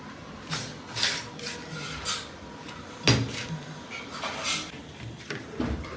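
Metal tool parts handled on a workbench: a series of irregular clinks and knocks, the loudest about three seconds in, as the homemade screw-type bearing puller is picked up and moved.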